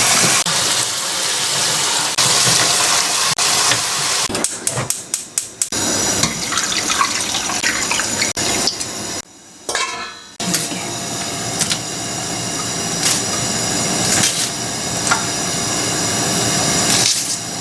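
Tap water running while parboiled pork backbones are rinsed and scrubbed clean of scum and fat, with bones knocking against a pot or bowl. The water breaks off briefly about halfway through.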